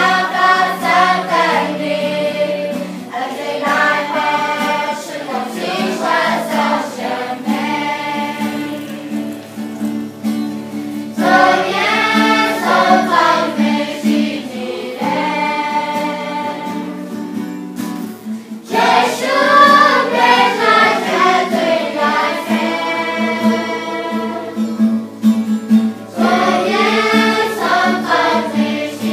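Background music: a song sung by a group of voices over a steady sustained accompaniment.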